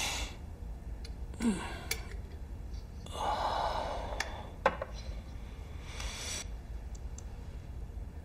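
A man breathing heavily as he comes round: a sharp breath in, a short falling groan about a second and a half in, then a long sigh about three seconds in, with a few faint clicks.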